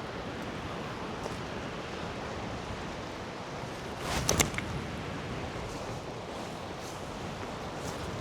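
Steady rush of falling water from the Gljúfrabúi waterfall, with a short crackle about halfway through.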